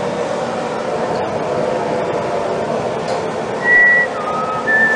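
A person whistling a few notes, starting about three and a half seconds in: a held high note, a lower note, then a wavering one. Underneath is a steady rushing background noise.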